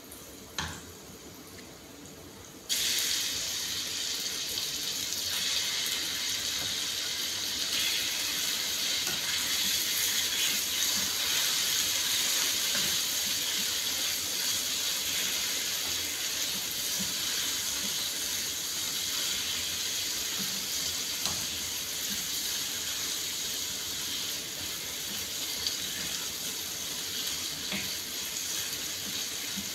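Pieces of raw chicken breast dropped into hot oil in a frying pan, sizzling at a steady hiss that starts suddenly about three seconds in. A single short knock comes just before.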